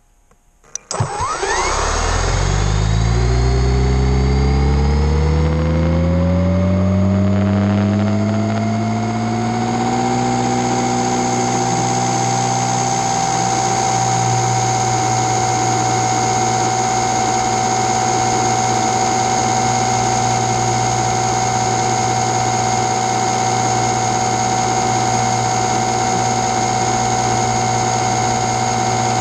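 Drone's electric motors and propellers spinning up about a second in, their whine rising steadily in pitch for several seconds, then holding a loud, steady whine as it flies.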